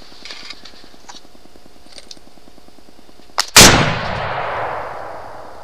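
One rifle shot from an AR-style rifle, a faint click just before it, then the report echoing and trailing off through the woods for about two seconds.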